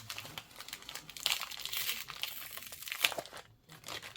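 Packaging around a replacement laptop LCD panel being crinkled and handled as the screen is unwrapped: irregular rustling, busiest about a second in, with a few sharp clicks near the end.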